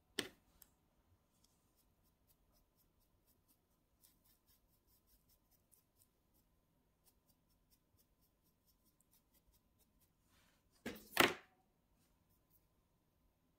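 A soft fluffy brush sweeping over glitter-coated nails, giving a run of faint light ticks, with a click at the start and a brief louder rustle of hand handling near the end.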